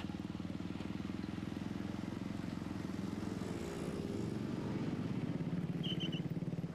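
An engine running steadily, with a brief rise in pitch about halfway through, and three short high chirps near the end.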